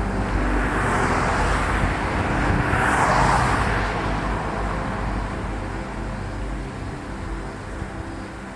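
A road vehicle passing by: its tyre and engine noise swells to a peak about three seconds in and then fades away.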